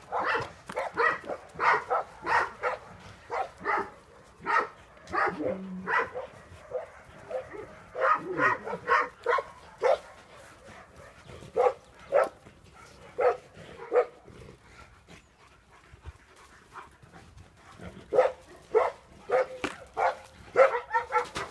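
Female Central Asian Shepherd Dog barking in repeated volleys, guard-barking at a stranger outside the fence. She goes quiet for a few seconds after the middle, then barks again.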